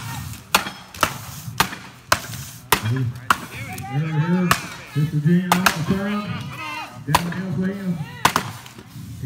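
Axes chopping into upright wooden blocks in a standing block chop, with sharp strikes coming about one to two a second from two choppers. A man's voice calls out over the chopping from about three seconds in.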